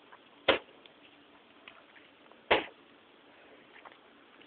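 Two sharp snaps about two seconds apart from a sawed-off Crosman 760 Pumpmaster BB gun being fired, with faint ticks between.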